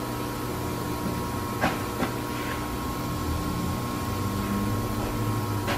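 Steady hum of running shop machinery with constant tones, swelling a little in the middle, and a few light clicks, two of them close together under two seconds in.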